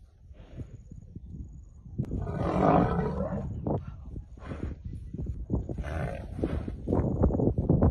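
Lions growling while attacking a buffalo calf. The growling is loudest about two to three and a half seconds in and comes again near the end.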